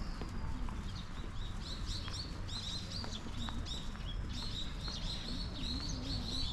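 A flock of small birds chirping in many quick, short, high calls that grow busier about a second and a half in, over a steady low outdoor rumble.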